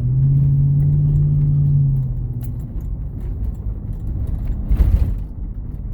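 Worn front driver's-side wheel hub bearing on a 2012 Chevrolet Tahoe humming low and steady while the truck is driven, over road rumble; the hum is loudest for the first two seconds, then eases. A thump comes near the end.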